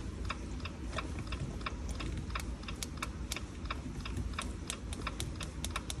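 Jeep Wrangler's hazard flasher ticking steadily, about three to four clicks a second, the hazards being switched on for the key-programming procedure. A low steady hum sits underneath.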